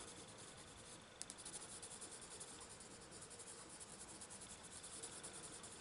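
Faint scratching of a coloured pencil shading over a book page.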